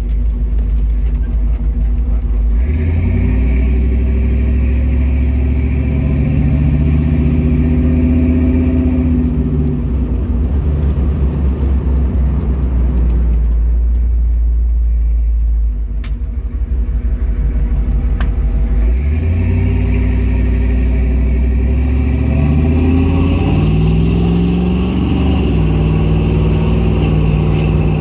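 1977 Ford Bronco's engine heard from inside the cab, pulling away and running along at a steady speed. Near the middle it falls back to a low idle at a stop, then accelerates again, its pitch climbing through the gears. Two faint clicks come in the quiet stretch.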